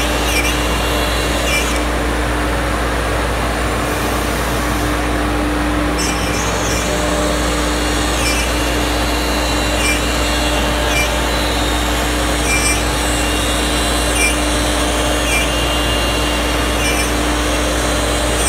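CNC router spindle cutting aluminium composite (ACM) sheet: a steady machine whine over the hiss of the cut. Short high swoops, falling then rising, come about every one to two seconds.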